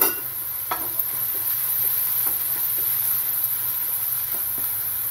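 Chopped onions and green chillies sizzling in hot oil in a non-stick kadai while a wooden spatula stirs them, with a sharp knock of the spatula against the pan right at the start and several lighter scrapes and taps after.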